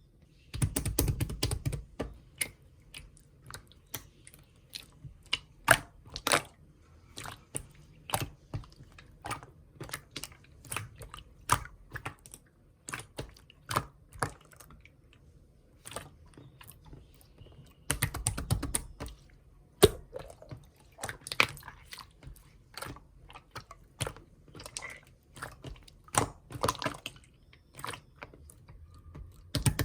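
Hands playing with slime: an irregular run of sharp clicks and pops as it is pressed and squeezed, with denser squishing spells about a second in, around eighteen seconds in, and near the end.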